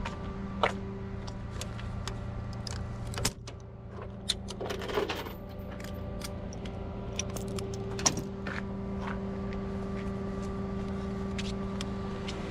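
Tow truck engine idling steadily, with scattered metallic clinks and knocks over it.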